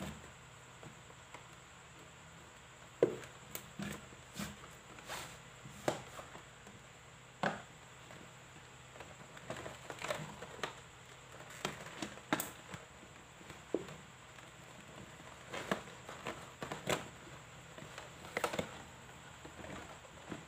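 Cardboard box being handled and opened: scattered rustles, scrapes and clicks as the sleeve comes off and the flaps are pulled open, the loudest about three seconds in.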